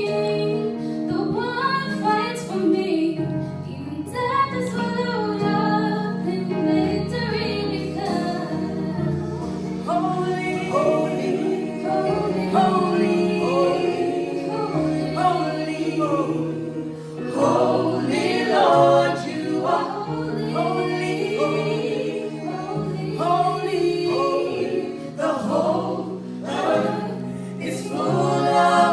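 Choir singing a gospel worship song in several parts, over sustained low notes.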